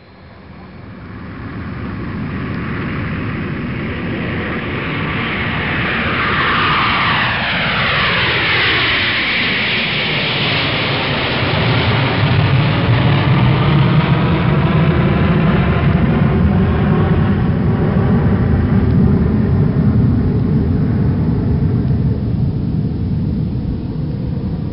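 Jet airliner flying past. It fades in, its engine whine falls in pitch over a few seconds, and it settles into a steady low rumble.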